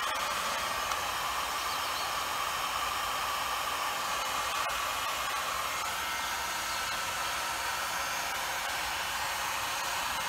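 Electric heat gun running steadily with a constant rushing hiss, blowing hot air onto an air compressor's cast pulley to expand it off its shaft.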